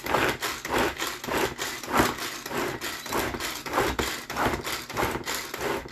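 Tupperware Power Chef pull-cord chopper pulled over and over, about three pulls a second, each pull a short rasping whirr as its blades spin through onion and garlic.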